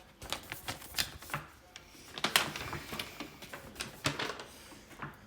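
Irregular light clicks and taps, about a dozen spread unevenly over a few seconds, at a desk.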